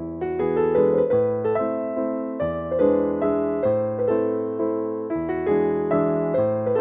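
Background piano music: keyboard chords and melody notes struck one after another, each ringing and fading, with a fuller, louder phrase coming in right at the start.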